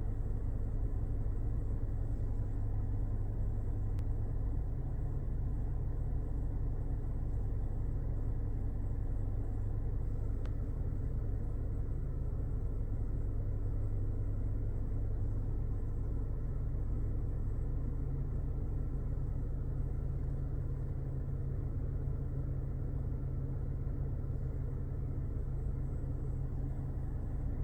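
2022 Toyota Corolla running with its air conditioning on: a steady low drone with faint, thin, unchanging tones above it. This is the hissing/squealing noise the owner reports from the AC system at under 10,000 km.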